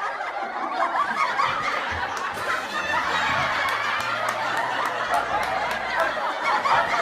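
Laughter: a continuous run of snickering and chuckling.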